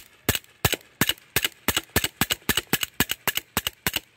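Daisy Powerline 1911A1 .177 CO2 BB pistol firing a rapid string of sharp shots, about four a second, emptying the magazine.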